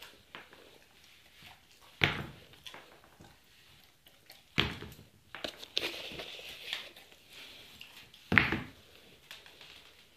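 Running shoe tapped on a tile floor three separate times, each a sharp slap with a short ring. These are the light shoe taps of a counter-conditioning exercise that mimics swatting bugs.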